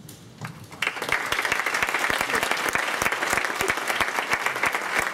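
Audience applauding, starting about a second in: many hands clapping irregularly and densely.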